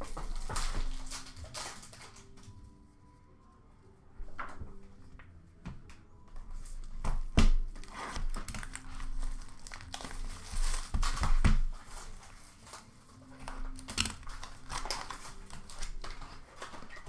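Upper Deck Series 1 hockey card pack wrappers crinkling and tearing as packs are ripped open and cards are handled, in irregular rustles and sharp snaps, with a quieter stretch about two seconds in.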